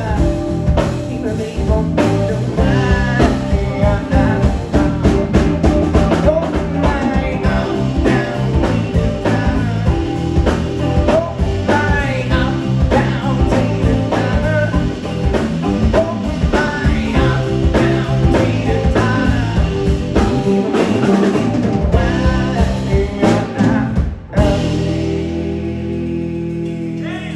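Live rock band of electric guitar, electric bass and drum kit playing, with steady drum hits under the guitar and bass. About 24 seconds in the drumming stops and the band holds a last chord that rings on.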